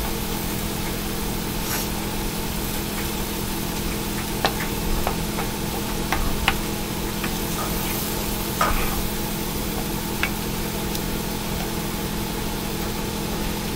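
Eggs sizzling in a frying pan over a steady hum, with a few short light clicks of a utensil scattered through.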